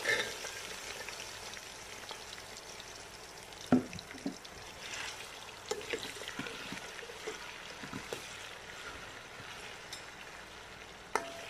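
Diced potatoes tipped into hot oil in a steel pot, frying with a soft sizzle, while a slotted steel spoon stirs them, clinking and scraping against the pot a handful of times; the sharpest clink comes about four seconds in.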